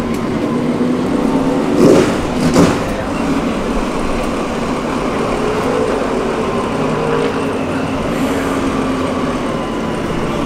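Time-attack race car's engine running at low revs as the car creeps along at walking pace, a steady low drone, with two short loud bursts about two seconds in.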